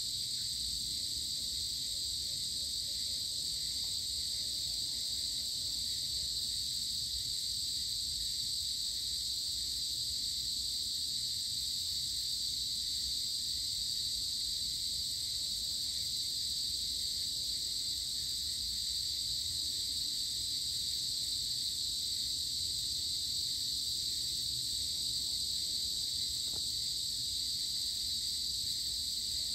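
Steady, high-pitched chorus of insects: several shrill tones layered at different pitches, unbroken and even throughout.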